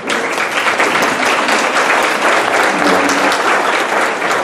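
Audience applauding, a dense, even clatter of many hands clapping.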